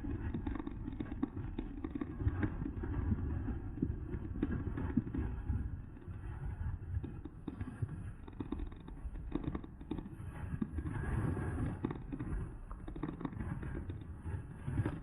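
Wind rumbling on the microphone, with scattered clicks and knocks throughout.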